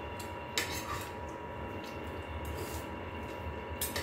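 A steady room hum with a thin high whine, over which dishes and cutlery click sharply twice, once about half a second in and once near the end, with quieter eating noises between.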